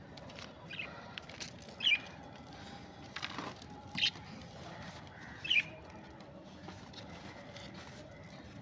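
Budgerigar giving short, sharp chirps, three louder ones about a second and a half to two seconds apart, over a steady background hiss.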